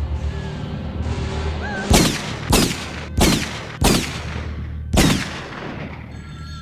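Five loud pistol shots at uneven intervals, each a sharp crack with a short tail, over a low, steady film-score drone.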